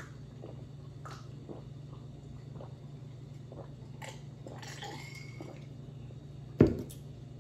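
Gulping water from a glass, with swallows about twice a second, followed by the glass knocked down onto the table, a single loud knock near the end.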